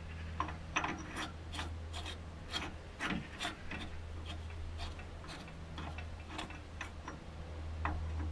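Irregular metallic clicks and short scrapes from a new screw-in upper ball joint being turned by hand, with a socket, into the threaded top of an MGF front hub. The clicks come about two or three a second and are loudest in the first half.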